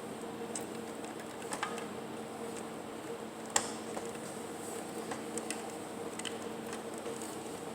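Scattered light clicks and taps of cable connectors and drive parts being handled as SATA cables are fitted to a hard drive inside a desktop computer case, with one sharper click about three and a half seconds in, over a steady low hum.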